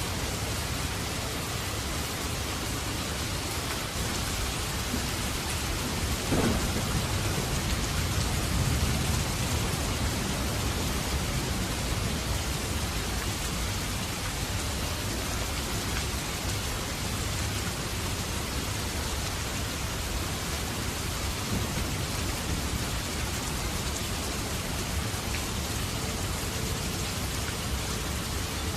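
Steady heavy rain, with a roll of thunder that breaks in about six seconds in and rumbles low for several seconds before fading back into the rain.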